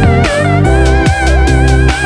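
Background music: a wavering high melody over sustained low notes that change every half second or so.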